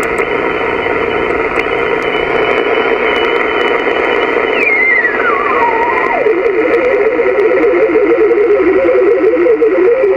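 Hiss of a 10-meter band receiver from the Voyager VR9000 radio's speaker as it is tuned up the band. A high steady whistle from a signal being tuned across glides down in pitch about halfway through as the dial turns. It settles into a low warbling tone.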